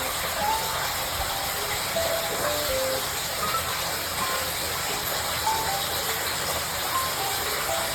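Hot water pouring steadily into a bathtub from the automatic bath-filling system, a continuous rushing hiss, with light background music notes over it.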